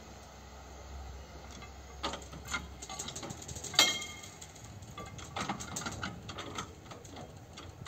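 Level-crossing barrier booms rising, with irregular mechanical clicks and ticks and one sharp metallic clank with a short ring about four seconds in. A low rumble from the departing railcar fades out in the first two seconds.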